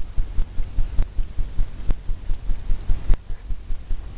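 Palette knife working paint onto a stretched canvas. Each stroke makes the canvas give a dull, low thump, about three a second.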